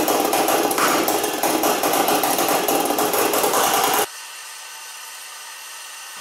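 Homemade pulse detonation engine running, a loud rapid stream of sharp pulses. About four seconds in it stops abruptly, leaving only a faint hiss.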